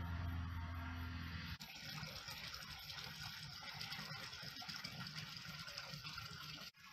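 A steady low mechanical hum, then, after an abrupt cut, a steady rushing noise like running water.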